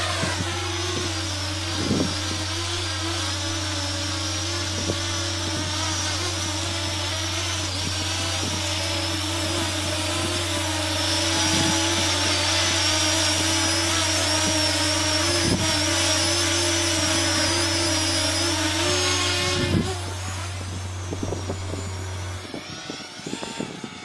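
Parrot Anafi quadcopter's four propellers buzzing with a steady, slightly wavering whine as it hovers close by. The sound grows louder about halfway through, then drops away suddenly near the end as the drone flies off.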